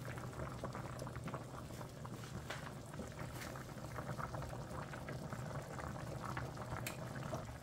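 Pan of snapper steaming on the stove, its cooking liquid bubbling steadily with many small pops, over a low steady hum.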